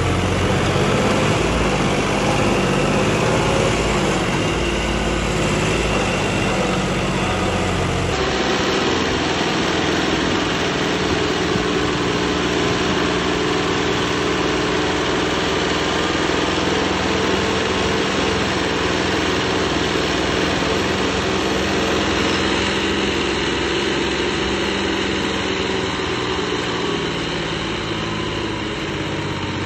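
John Deere tractor's diesel engine running steadily under load with the front wheels lifted and the rear implement dragging in the soil. The sound changes abruptly about eight seconds in.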